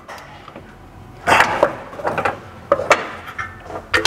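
Ratchet and deep socket tightening a motor mount bolt into the engine block: scattered metallic clicks and tool clinks at uneven spacing, with a louder run of clicks about a second and a half in.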